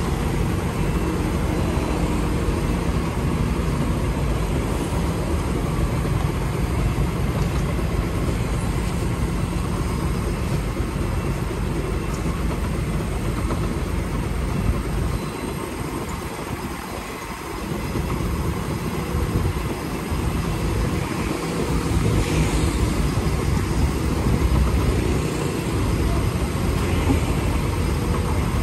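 Tracked excavator's diesel engine running steadily while its hydraulics lower a concrete pipe on a strap into a trench. The engine note eases off briefly about halfway, then picks up again.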